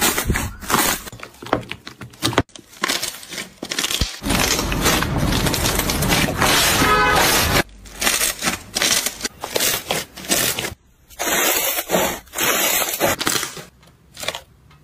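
Soft, fluffy slime being squeezed and poked by hand: a run of short wet pops and clicks as air pockets in it burst, with a denser, continuous stretch of squishing in the middle and a few brief silent gaps.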